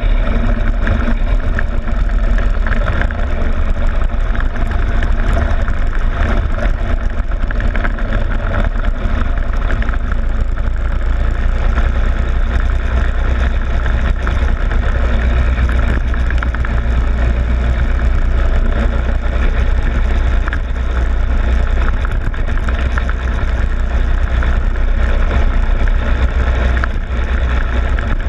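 Go-kart engine running steadily as the kart drives laps around the circuit, heard from a camera on the kart's front fairing, with a heavy low rumble and a noisy hiss and little change in level.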